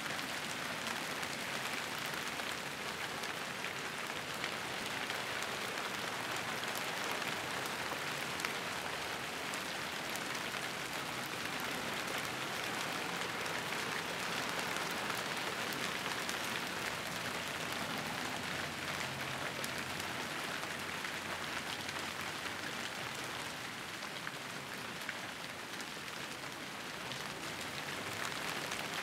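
Small hail mixed with snow falling steadily on roofs and the ground, a dense pattering of many fine ticks over a steady hiss.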